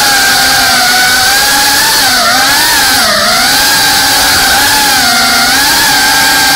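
GEPRC CineLog35 cinewhoop FPV drone's four brushless motors and ducted propellers whining steadily, the pitch wavering up and down with the throttle, dipping lowest about two to three seconds in.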